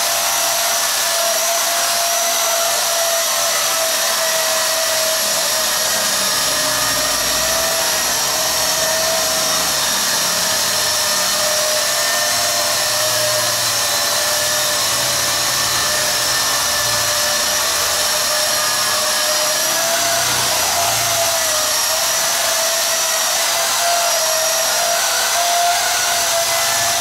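Quadcopter drone with a ring-shaped propeller-guard hull in flight, its four propellers giving a steady buzzing whine that wavers slightly in pitch as it hovers and manoeuvres.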